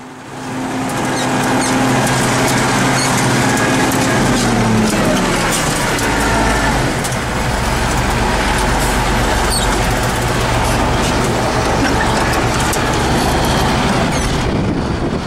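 T-150K tractor's YaMZ diesel engine running steadily under load, heard from inside the cab as it pulls a cultivator, with a dense roar and many sharp rattles from the cab. The engine's low note changes about five seconds in.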